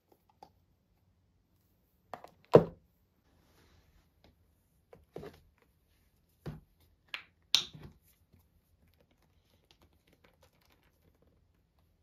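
Plastic skincare jars and tubes knocking and clicking as hands handle them in a cardboard storage box: a string of separate sharp knocks, the loudest about two and a half seconds in and another strong one near eight seconds.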